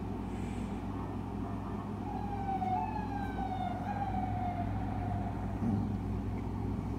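Emergency vehicle siren out on the street, heard through a window: one long wail that slides slowly down in pitch, starting about two seconds in and dying away before the end, over a steady low hum.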